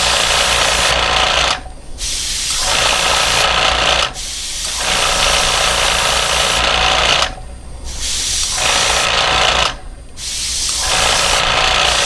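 Gravity-feed airbrush hissing as it sprays paint onto paper, its air cutting off briefly four times as the trigger is released and pressed again in trigger-control practice. A low steady hum runs underneath.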